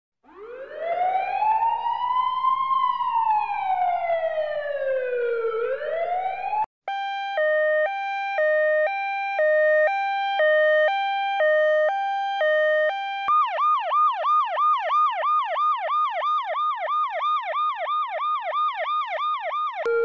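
A run of emergency-vehicle siren sounds. First a slow wail rises and falls. About a third of the way in it gives way to a Spanish police car's two-tone siren, alternating a high and a low note each held under a second. In the last third it changes to a fast yelp that sweeps up about three times a second.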